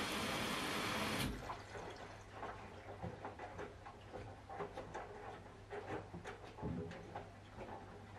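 Siemens front-loading washing machine mid-wash: a loud steady rushing noise stops abruptly about a second in. After it, the wet tea towels slosh and thud softly in the turning drum over a steady low motor hum.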